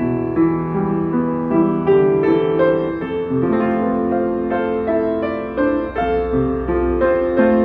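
1988 Yamaha YU1 upright piano being played: a melody over chords, with notes changing several times a second and held notes overlapping.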